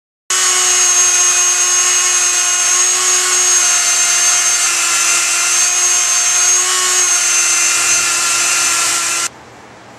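Handheld flex-shaft rotary tool running at speed on the wood of the rifle's forend: a steady high whine with a slight waver in pitch. It starts about a third of a second in and cuts off abruptly about nine seconds in.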